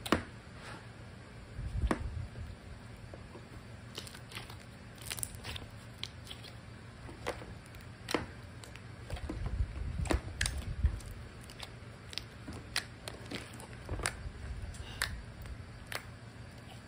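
Thick slime with mixed-in pieces being squished, stretched and poked by hand in small plastic tubs: irregular small clicks and pops, with a few dull handling bumps.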